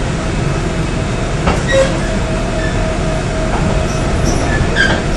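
Korail Line 3 electric subway train running, heard from inside the passenger car: a steady rumble of wheels on rail with a steady hum, a couple of rail-joint clacks about a second and a half in, and brief high wheel squeals near the end.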